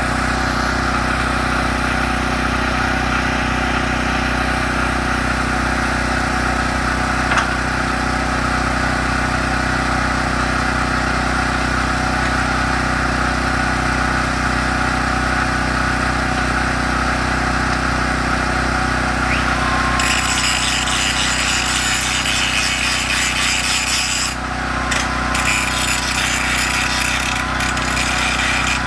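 A power tool working metal: a steady machine sound runs throughout, and about two-thirds of the way in a harsher, hissing cutting or grinding noise joins it. That noise breaks off briefly once and then resumes.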